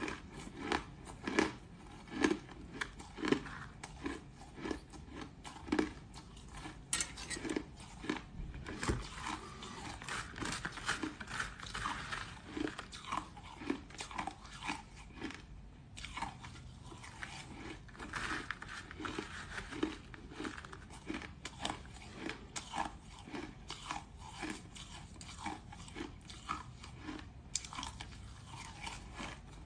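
Crushed ice being bitten and chewed close to the mouth: a steady run of crisp crunches, about two a second.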